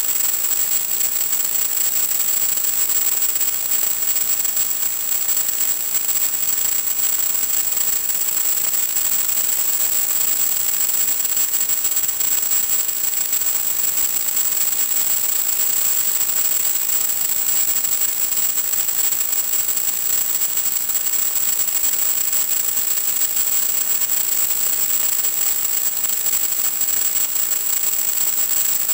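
Steady static hiss from an analog FPV video link's audio channel, with a thin high-pitched whine running through it and no motor pitch following the throttle changes.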